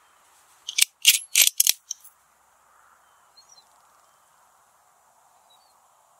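Bolt of a Sig Sauer Cross bolt-action rifle being cycled between shots: a quick run of sharp metallic clicks and clacks lasting about a second and a half, near the start.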